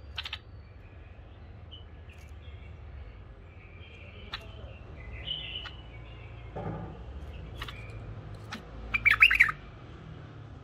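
White-eared bulbul in a bamboo cage giving short scattered chirps, then a loud burst of quick whistled notes about nine seconds in.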